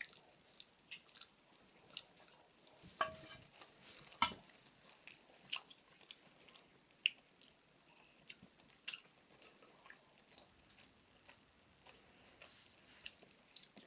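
A person chewing a piece of fried back bacon: faint, irregular clicks of biting and chewing, a few louder bites about 3 and 4 seconds in.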